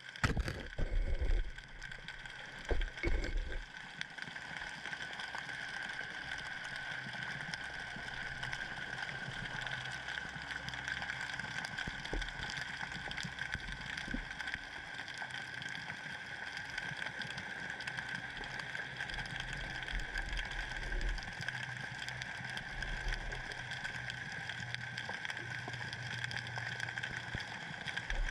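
Underwater sound picked up by a camera in its waterproof housing: a few loud knocks in the first few seconds as it bumps about, then a steady muffled hiss with a constant high whine and low hum.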